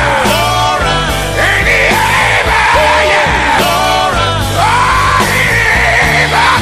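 Gospel song playing: a lead singer sings in a strained, shouting style over a steady bass line and band.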